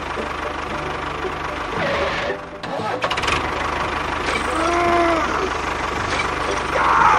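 A small engine running steadily with an even low chugging, dipping briefly about two and a half seconds in. A short pitched tone rises and falls a little after the middle.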